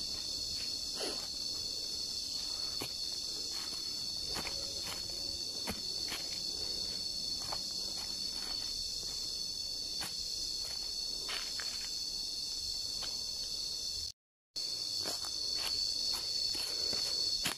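Steady high-pitched chorus of forest insects, with irregular footsteps on dry leaf litter underneath; everything cuts out for a split second about two thirds of the way through.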